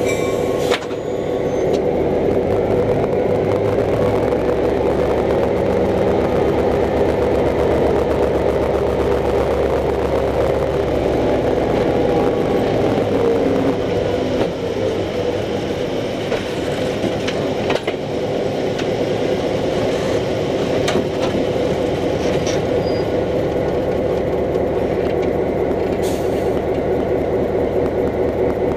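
EMD SW9 switcher locomotive's two-stroke diesel engine running steadily as the locomotive rolls along the track, heard from down beside the wheels. A few sharp clanks and clicks from the wheels and running gear come through, several of them in the second half.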